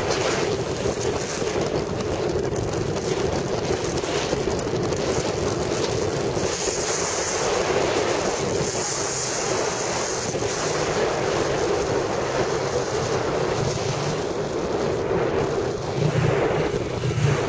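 Steady wind noise buffeting the microphone of a moving motorcycle, with the motorcycle's engine running underneath; a louder low rumble comes up near the end.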